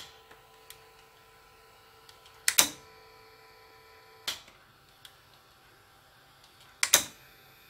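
Victor BR-8600 VCR's tape-loading mechanism threading a cassette after play is pressed, on a freshly replaced loading belt: a series of sharp mechanical clicks and clunks, two of them doubled, over a faint steady motor hum that stops with a click about halfway through.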